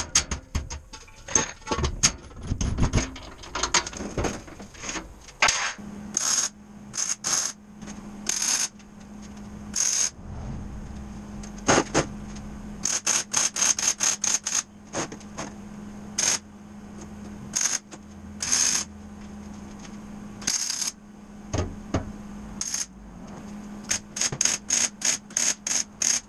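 Arc welder laying a run of short tack welds on steel strut framing, each a brief burst of crackle, with a steady hum between the welds; toward the end the welds come in quick succession. In the first few seconds there are scattered metallic clicks and knocks of handling parts and tools.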